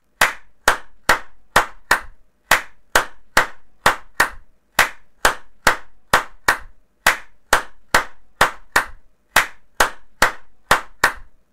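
Hand claps repeated in a loose rhythm, about two to three a second, each with a short ringing tail.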